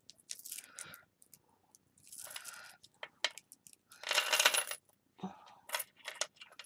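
Small Tibetan-style alloy heart charms clinking against each other as they are handled and set down by hand: a run of light metallic clicks with a few short jingles, the loudest a little over halfway through.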